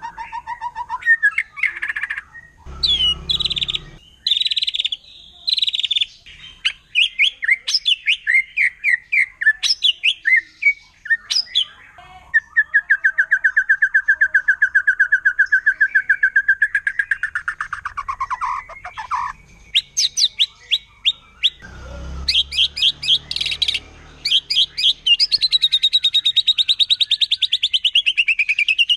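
White-rumped shama (murai batu) singing a loud, varied song of clear whistles and rapid trills. About halfway through it holds one fast even trill for several seconds, which drops in pitch at its end, then goes back to quick bursts of notes.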